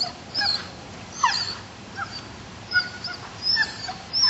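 A Malinois-cross dog whining and yelping in short, high-pitched calls, about seven in quick succession.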